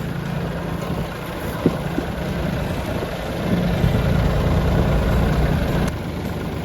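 Kubota tractor engine running steadily, growing louder for a few seconds past the middle and then dropping back, with one sharp click early on.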